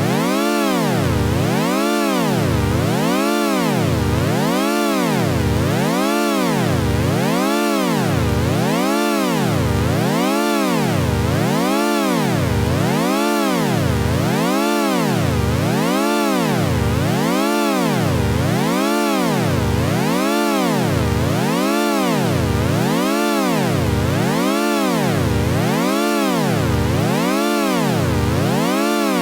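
Synthesized buzzy tone whose pitch glides up and down in an even wobble, about once every second and a half, repeating without a break: the 'Weird Talk' sound effect.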